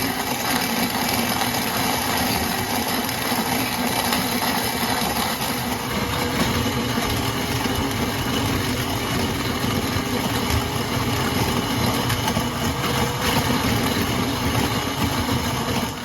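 KitchenAid stand mixer running its grain mill attachment, grinding hard white wheat into flour on the finest setting: a loud, steady motor hum with grinding noise.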